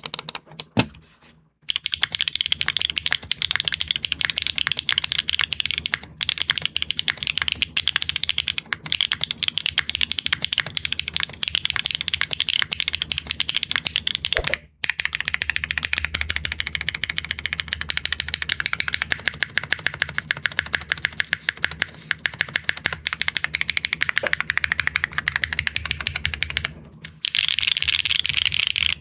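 Mechanical keyboard typing sound test: Wingtree G-One linear switches in a Neo65 Core Plus on a PBT plate, typed fast and continuously. The typing stops briefly twice, about halfway through and near the end, and after the first break it sounds deeper.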